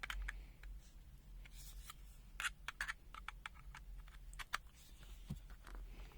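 Light, irregular plastic clicks and taps from handling a multimeter and plugging a charging cable into its port, bunched about halfway through, over a steady low hum.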